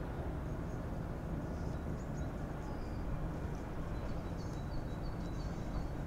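Steady low rumble of distant harbour traffic and engines, with small birds chirping faintly in quick runs of short high chirps about two-thirds of the way through.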